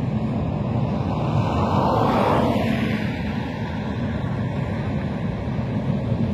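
Highway traffic noise: a steady low rumble of tyres and engines, swelling louder about two seconds in and then easing back.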